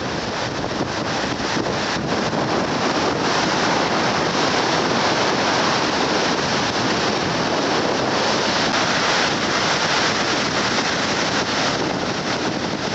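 Rough, high sea surf breaking against the shore as a continuous rushing noise that swells slightly in the middle, with wind buffeting the microphone.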